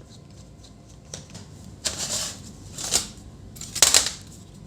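A few sharp plastic clicks and rattles, about two, three and four seconds in, the loudest near the end, as the bottom cover of a Lenovo IdeaPad 130 laptop is worked loose once its screws are out.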